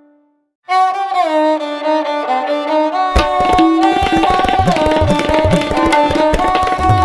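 Instrumental background music: after a brief silence, a sustained melody with sliding pitch starts under a second in, and drumming joins about three seconds in.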